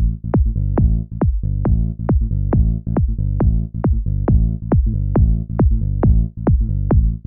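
Electronic dance music soundtrack: a steady kick drum at a little over two beats a second over sustained low synth chords.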